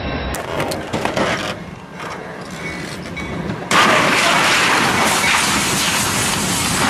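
Freight train striking a semi-trailer on a level crossing: a sudden loud crash a little under four seconds in, then steady loud noise of the train running through the wreckage.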